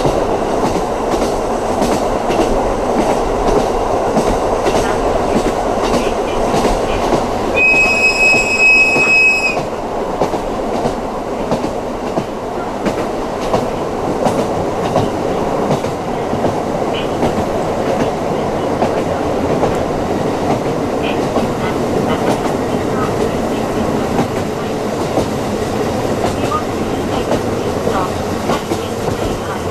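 KiHa 54 diesel railcar running at speed, heard from inside the cabin: a steady running noise of the engine and the wheels on the rails, with light clicks over the rail joints. About eight seconds in, a loud, high, steady tone sounds for about two seconds.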